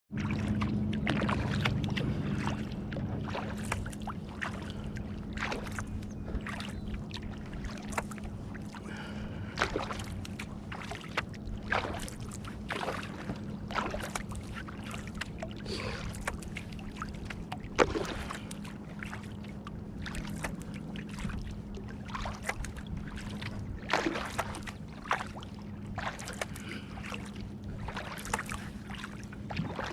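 Kayak paddle blades dipping and pulling through calm lake water, with repeated short splashes about once a second and water trickling off the blades. A faint steady low hum runs underneath.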